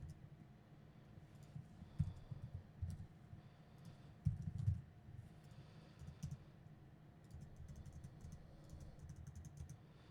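Typing on a computer keyboard in short bursts of key clicks, with a few heavier keystrokes about two seconds in and just after four seconds, and a quicker run of typing near the end.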